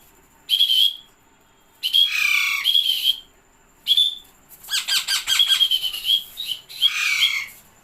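Parrot calling in a string of short squawks and chirps with brief pauses between them, some running on for a second or two.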